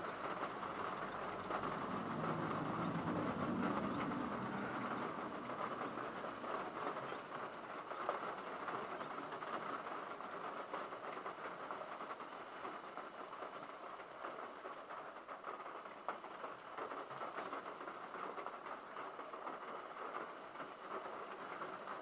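Heavy rain clattering on a car's metal roof, heard from inside the car as a dense, steady patter of drops. A low rumble sits under it for a few seconds near the start.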